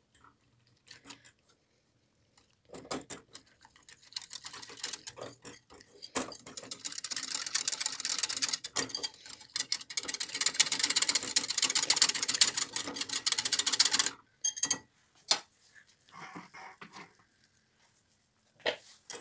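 Wire whisk beating wheat starch into milk in a glass bowl: a quick, even clatter of the wire loops against the glass that goes on for about ten seconds, with a few separate taps before and after it.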